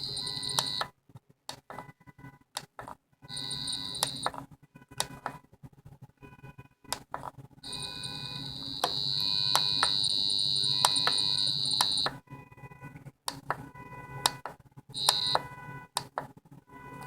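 Handheld RF/EMF meter sounding its readings: a high electronic beeping tone that comes and goes in stretches, the longest about four seconds, over irregular crackling clicks.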